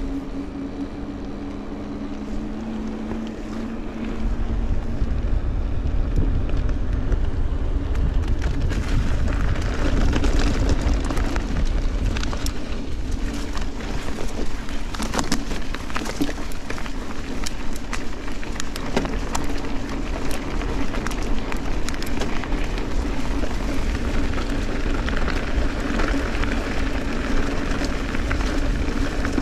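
Wind rushing over a helmet camera's microphone while a mountain bike, a Giant Trance 29, is ridden along. Under it runs a steady drone, with scattered knocks and rattles from the bike. The wind rumble grows louder about four seconds in.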